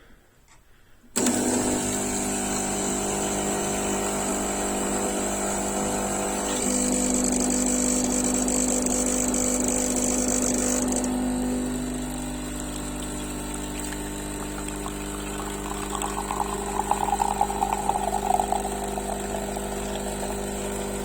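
Klarstein Espressionata Gusto espresso machine's pump switching on about a second in and running steadily while it pulls a shot of espresso. It settles a little quieter around halfway.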